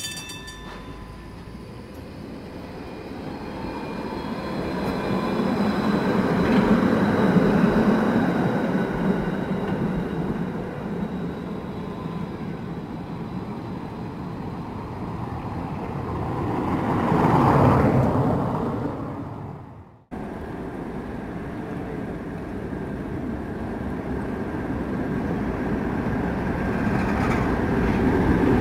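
Electric trams rolling on street track, with wheels rumbling on the rails and a thin steady high whine; the sound swells loud as a tram passes close. It cuts off suddenly about two-thirds of the way through, then builds again as another tram approaches.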